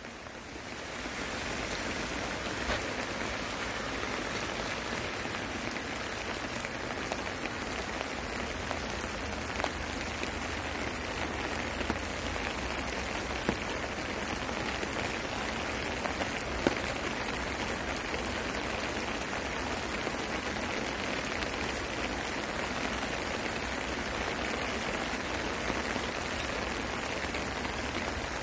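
Steady rain falling, a continuous even hiss, with an occasional louder drop striking close by.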